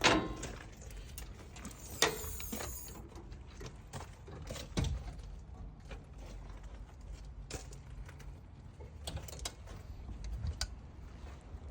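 Scattered mechanical clicks and clunks of hardware being handled, a few louder knocks among them, over a low steady rumble.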